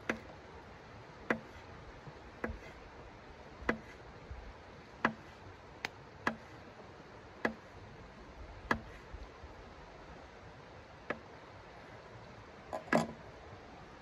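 Folding knife slicing a dry sausage into rounds, the blade tapping the tabletop as it comes through each cut: about a dozen sharp taps a little over a second apart, then a louder double knock near the end.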